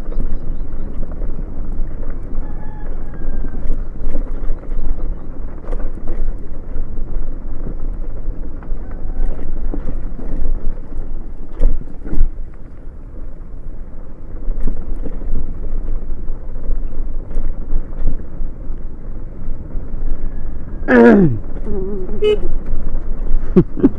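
Motorcycle riding over a rough stony dirt track: a continuous engine and road rumble with occasional knocks from the bumps. Near the end comes a brief pitched cry that falls steeply.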